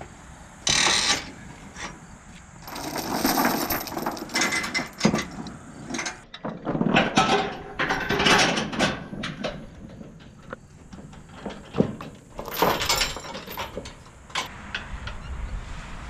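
Steel tie-down chains rattling and clanking as load binders are tightened to secure a compact tractor on a trailer: a string of separate metallic clanks and rattles.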